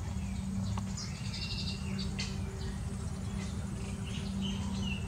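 Weaver birds chirping: scattered short high chirps and buzzy chatter, with a short downward-sliding note near the end, over a steady low hum.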